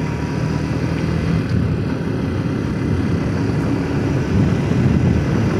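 Suzuki Gixxer motorcycle cruising at steady speed: an even engine hum under a rush of wind noise.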